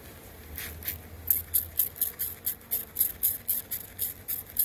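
Hand trigger spray bottle squirting a package of honey bees in quick, repeated short hisses, about four a second.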